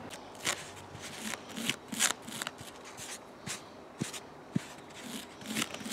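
Small wire brush scrubbing a sooty spark plug, an irregular string of short scratchy strokes about one or two a second, cleaning off carbon fouling from a rich-running engine.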